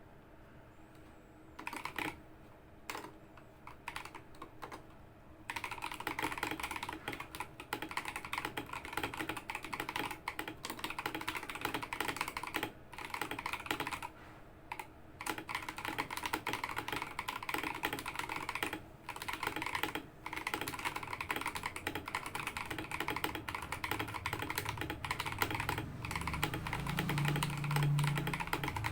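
Fast typing on a Next Time 75 mechanical keyboard with lubed Akko Lavender switches and stock stabilizers: a few scattered keystrokes at first, then a continuous run of rapid key clacks from about five seconds in, with short pauses. A low rumble comes in near the end.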